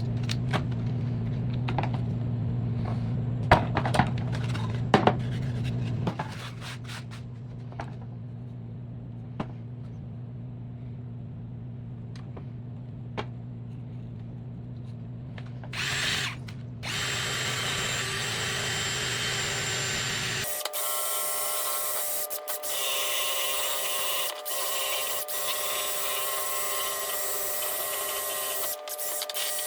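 Power tool spinning a quick-change sanding disc against a workpiece. A steady low motor hum with a few sharp clicks drops to a quieter run about six seconds in. About twenty seconds in it changes to a louder, higher-pitched whine.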